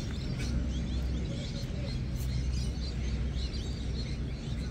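Many small birds chirping in quick, scattered calls over a steady low outdoor rumble.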